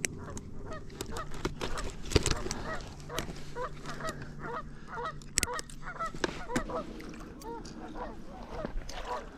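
A flock of geese honking, many short calls overlapping several times a second, over a steady low outdoor rumble. A few sharp knocks stand out, the loudest about two seconds in and again past five seconds.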